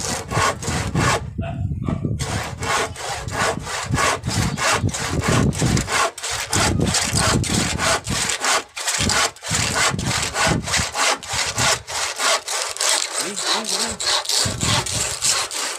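Handsaw cutting through a wooden board: rasping back-and-forth strokes in a steady, quick rhythm, with a brief pause about a second and a half in.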